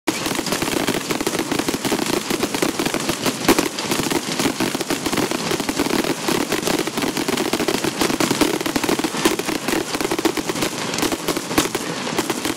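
Fireworks crackling in a dense, rapid, unbroken run of sharp pops, with a louder bang about three and a half seconds in.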